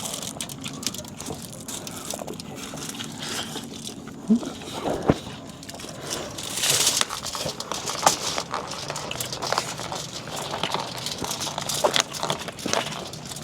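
Eating and food-handling sounds: crinkling of food packaging and crunching, made up of many short clicks and crackles, with a longer rustle about seven seconds in.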